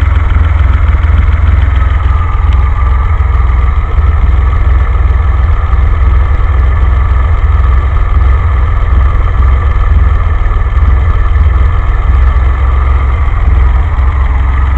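DeLorean's PRV V6 engine idling steadily on a carburetor conversion, a low, even pulsing rumble. Its idle outlet screws are set back near their correct position, so the idle is recovering from the rough running caused by opening them too far.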